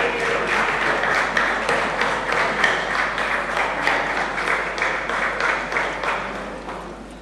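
Audience applauding with dense, irregular clapping that fades away about six to seven seconds in.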